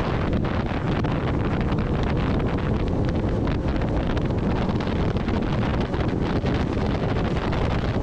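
Steady wind rush buffeting the microphone of a camera on a moving Kawasaki Ninja ZX-10R at road speed, with little of the engine coming through.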